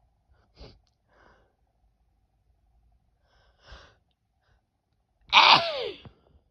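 A woman's short, quick breaths in, then about five seconds in a single loud sneeze that starts suddenly and trails off in a voice falling in pitch.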